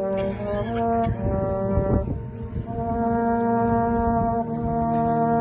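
Military brass band playing a slow melody in long held brass notes. The tune steps through a few notes early on, then settles on one long sustained note from about halfway through.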